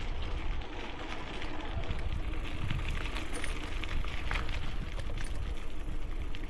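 Bicycle tyres rolling over gravel, a continuous crunch with scattered small clicks and rattles, under a steady low rumble of wind on the helmet-mounted microphone.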